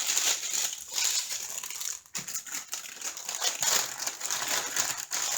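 Small plastic bags of diamond painting drills crinkling and rustling in quick, irregular crackles as they are handled.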